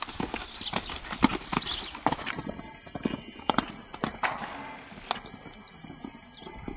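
Hoofbeats of a horse cantering on sand arena footing, a run of dull strikes in the canter's rhythm that turn sparser about two seconds in.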